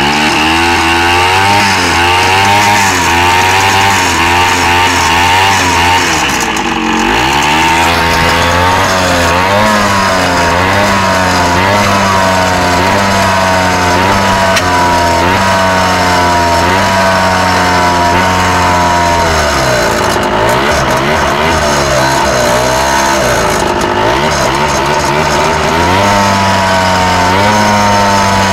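Scooter engine running and being revved unevenly, its speed rising and sagging again and again without settling. This is the sputtering and loss of throttle the owner complains of.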